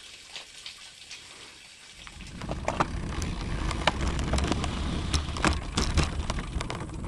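Wind buffeting and road rumble on a road bike's handlebar-mounted action camera, with scattered sharp clicks and rattles as the bike rolls slowly along the road. It starts after a quieter first two seconds.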